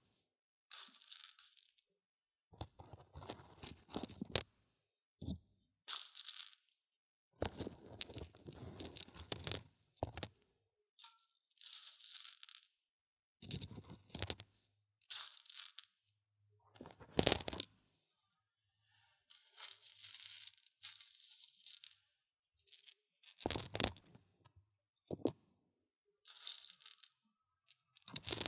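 Dried mung beans rustling and crackling as they are stirred and poked inside the ear of a binaural dummy-ear microphone. The sound comes in short bursts of a second or two, with a few sharp clicks and quiet pauses between.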